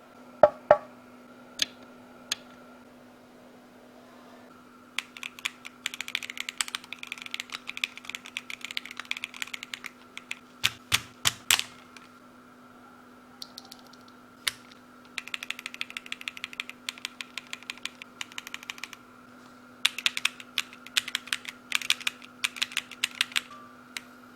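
Keychron Q1 Pro mechanical keyboard being typed on, in several runs of fast keystrokes with pauses between. There are a few separate, louder single key presses near the start and again about halfway through. A faint steady hum sits underneath.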